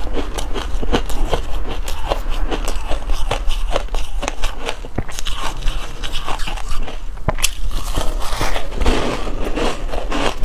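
Dense reshaped ice dusted with milk powder being bitten and chewed close to a clip-on microphone: an unbroken run of irregular, crisp crunches.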